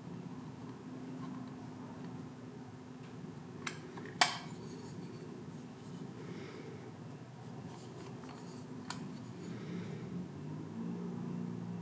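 Metal safety razor blade sharpener handled and turned in the hands: faint clicks and rubbing of its crank and hinged lid, with one sharp metallic click and a brief ring about four seconds in.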